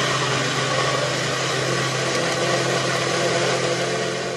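NutriBullet 600 Series personal blender running at full speed, its motor steady and loud as it blends leafy green vegetables into juice.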